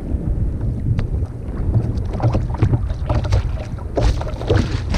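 Wind buffeting the microphone over water lapping and slapping against a sit-on-top kayak's hull, with scattered small knocks.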